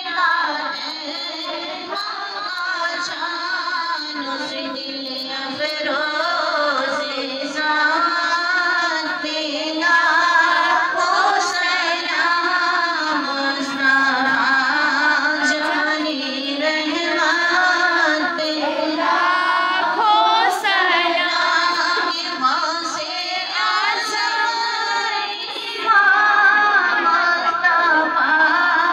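A woman singing a naat, a devotional Urdu song, solo into a microphone with no instruments, in a long melismatic line that sways in pitch.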